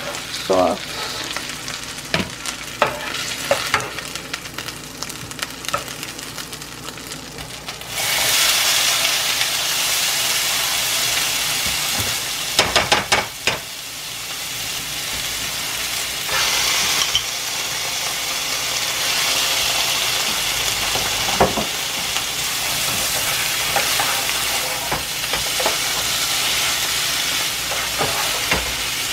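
A slotted spatula scraping and tapping a frying pan, then a sudden sizzle about a quarter of the way in as sliced bell peppers go into the hot pan. The peppers go on sizzling steadily while being stirred, with a few sharp clacks of the spatula near the middle.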